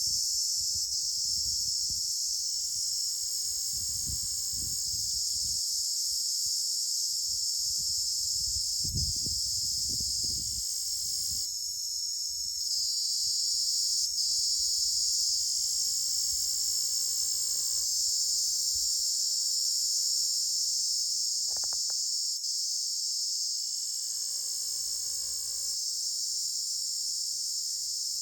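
A cricket calling with a continuous high-pitched trill that holds steady throughout. A few low rumbles sit under it about 3 to 5 seconds in and again around 9 to 10 seconds.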